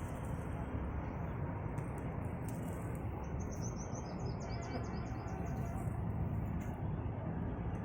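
A bird calls a rapid series of about ten short, high notes, starting about three seconds in and lasting about two seconds, over a steady rushing background noise.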